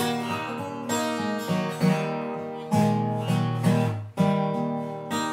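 Acoustic guitar strumming a blues accompaniment, chords struck every second or so and ringing out between.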